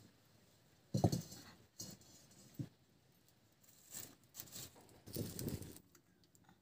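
Metal kadai set down with a knock on a wood-fired mud stove about a second in, followed by scattered light knocks and rustles of the pan and dry twigs being handled at the fire, with a longer rustling scrape near the end.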